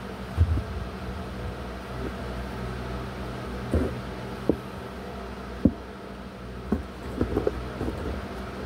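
Steady low room hum with about six light, sharp taps and clicks at irregular intervals.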